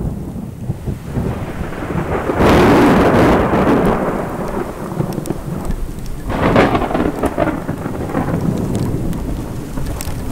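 Thunder from close lightning in a supercell: a sudden crack about two and a half seconds in that rolls into a rumble, and a second clap about six seconds in, over steady rain.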